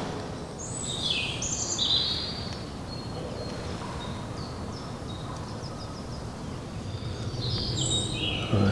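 Small songbirds chirping in short high phrases, about a second in and again near the end, over a steady low rumble of outdoor background noise.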